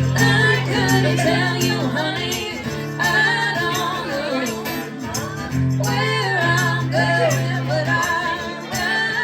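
Band playing a country song: a singer draws out long, wavering notes without clear words over sustained low chords. The chords break off twice, once about two and a half seconds in and again near the end.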